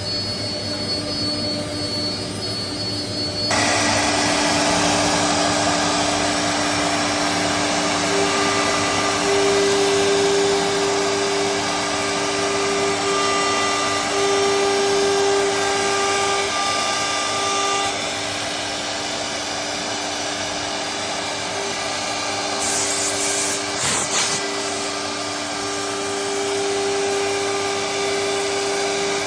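CNC router spindle running as the bit engraves an MDF door panel: a steady whine over the noise of the cutting. The cutting noise grows louder about three and a half seconds in.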